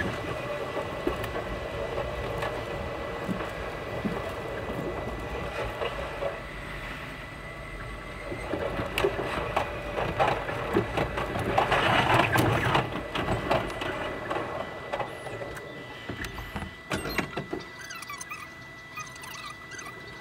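Running noise inside a limited express electric train, played back sped up: wheel and rail-joint clicks blur into a rapid mechanical chatter over a steady high tone, loudest around the middle.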